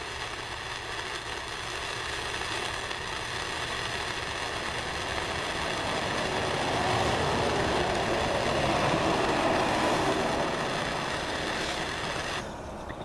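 Heat gun running, a steady rush of blown air with a high motor whine. It grows louder in the middle and switches off shortly before the end.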